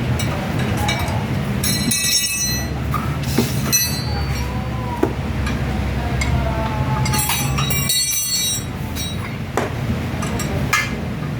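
Metal tools and parts clinking and knocking during brake work, with two longer metallic rings, one about two seconds in and one near the end, over a steady low hum.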